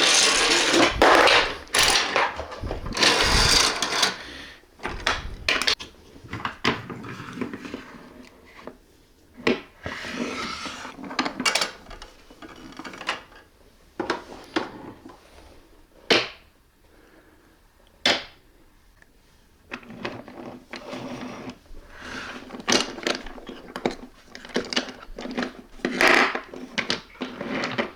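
Wooden toy trains and wooden track pieces clattering and knocking as they are handled and pushed along, a string of irregular clicks and rattles.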